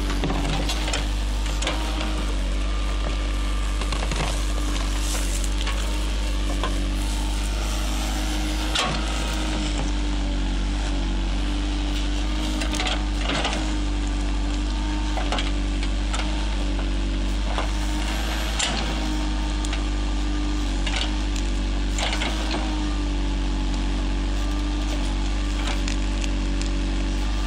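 JCB Sitemaster backhoe loader's diesel engine running steadily while the backhoe bucket rips a shrub out by its roots, with sharp cracks and snaps of roots and branches breaking every few seconds.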